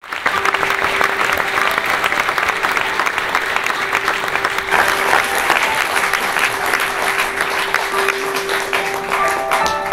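Audience applauding, with a steady held tone underneath; near the end a piano begins playing single notes.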